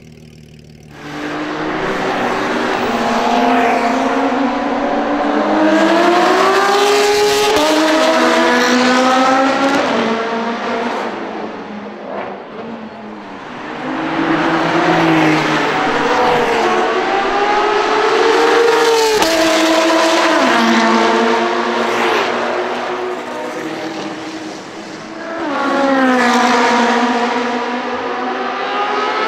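Porsche 992 GT3 RS's naturally aspirated flat-six, straight-piped with a Soul exhaust, very loud under hard acceleration at high revs. Its note climbs in pitch and drops suddenly at each quick upshift, over three separate pulls.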